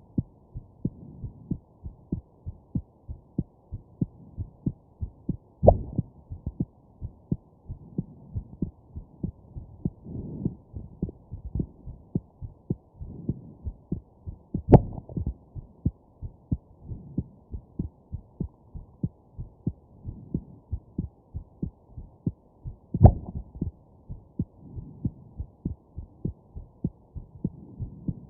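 Human heartbeat beating steadily. Three louder, sharper hiccup jolts cut in about eight or nine seconds apart.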